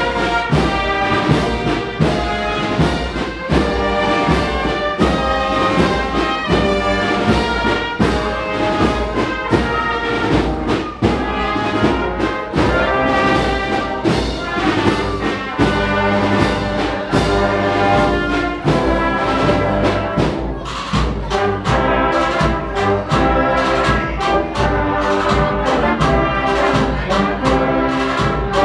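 Agrupación musical, a Spanish processional band of cornets, trumpets, trombones and drums, playing a processional march: full brass chords over a steady drum beat.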